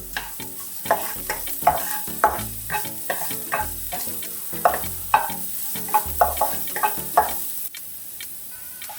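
Oil sizzling in a hot pan as ingredients are stir-fried, with a spatula scraping and knocking against the pan in quick repeated strokes. The sizzle and stirring stop near the end.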